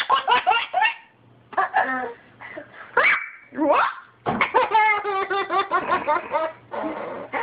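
A toddler laughing hard in several runs of rapid giggles with short breaks between them, with a couple of rising squeals about three seconds in and the longest run of laughter in the middle.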